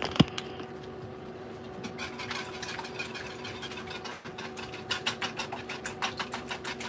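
Eggs being beaten by hand in a bowl, the utensil clicking against the bowl in quick strokes, about five a second, louder and faster about five seconds in. A sharp knock comes just after the start, and a steady faint hum runs underneath.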